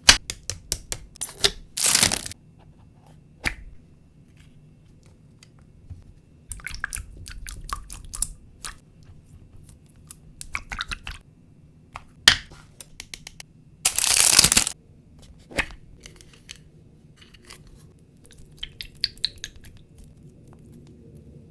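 Dumpling squishies being squeezed and handled close to the microphone: soft squelching and crinkling with scattered sharp clicks, broken by two short, loud rustling bursts, one about two seconds in and a longer one about two-thirds through.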